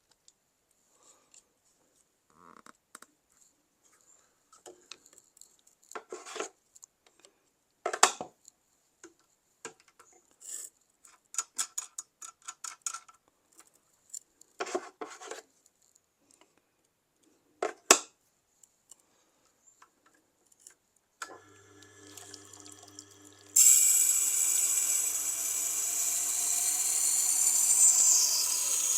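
Scattered clicks and knocks of a knife and jig being handled. About 21 seconds in, a Tormek sharpening machine's motor starts with a steady hum, and about two seconds later the knife meets the turning wheel, giving a loud, steady grinding hiss.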